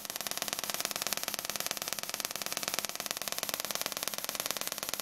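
Mini half-bridge solid-state Tesla coil sparking into the air from a wire breakout point: a steady buzz made of rapid, evenly spaced snaps, set by the interrupter's moderate pulse rate.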